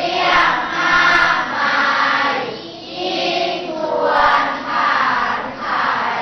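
A class of schoolchildren reading a Thai verse aloud in unison, in a chanted, sing-song delivery, phrase by phrase with short pauses between. The teacher judges the reading poorly phrased, with the pauses in the wrong places.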